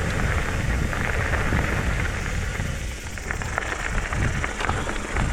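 Trek Rail 7 electric mountain bike riding down a dirt trail: steady tyre rolling noise and wind rumble on the microphone, with scattered light clicks and rattles from the bike.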